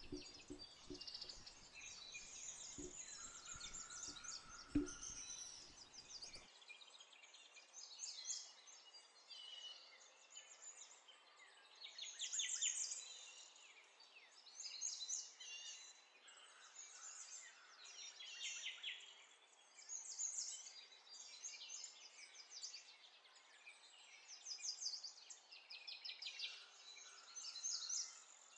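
Faint birdsong in the background: short chirps and quick trills repeated every second or two. A few soft taps come in the first few seconds.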